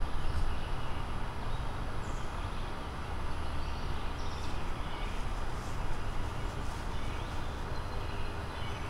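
Outdoor ambience: a steady low rumble with a few short, faint bird chirps scattered through it.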